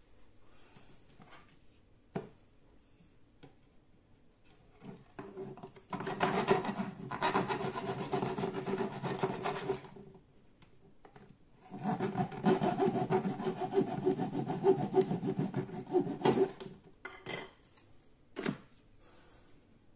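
A hand tool rasping rapidly back and forth against PVC pipe, cutting or shaping the plastic, in two long runs of about four seconds each with a ringing squeal in the strokes. A few short knocks of the plastic being handled come between the runs.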